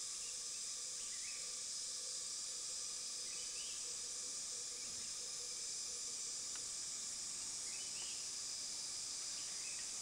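Steady high-pitched drone of insects in dry forest, with a short rising chirp from an unseen bird four times, a couple of seconds apart.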